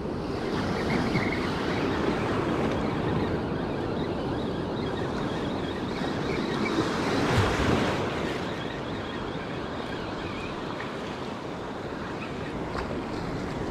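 Ocean surf washing up on the beach, with wind on the microphone; a wave swells louder about seven to eight seconds in.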